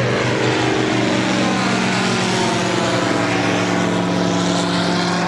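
A Just Aircraft Highlander light-sport airplane flying low overhead, its piston engine and propeller making a steady, even-pitched drone.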